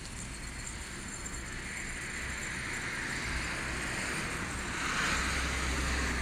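A car passing on the nearby street, its road noise swelling to a peak about five seconds in.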